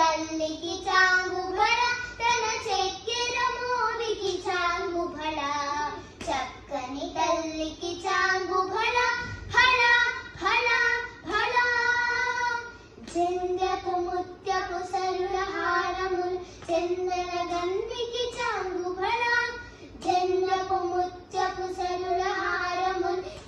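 Two young girls singing a Telugu song together, unaccompanied, holding and bending long sung notes.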